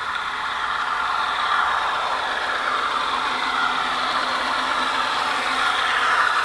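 Soundtraxx Tsunami sound decoder in HO scale Conrail GE B36-7 model locomotives, playing a simulated GE FDL-16 diesel engine running through the models' small speakers. It grows steadily louder as the locomotives approach.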